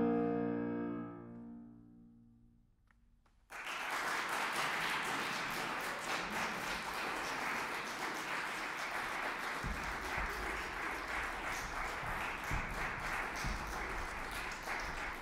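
The final chord of a grand piano dies away over about two seconds. After a brief silence, an audience breaks into steady applause.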